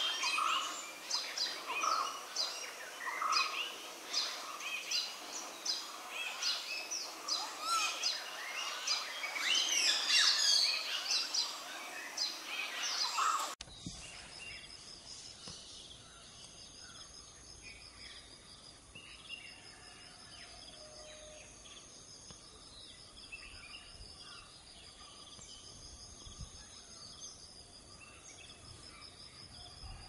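A dense chorus of forest birds, many overlapping chirps and whistles. About halfway through it cuts abruptly to a much quieter background of steady, rapidly pulsing insect trilling with a few faint bird calls.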